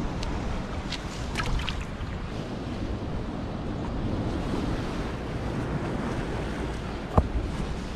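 Wind buffeting the microphone over the steady wash of sea water against a seawall, with a few faint clicks a second or so in and one sharp knock near the end.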